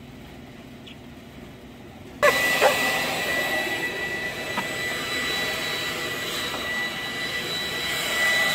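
Corded electric leaf blower switched on about two seconds in: its motor starts suddenly and runs with a steady high whine over a rush of air.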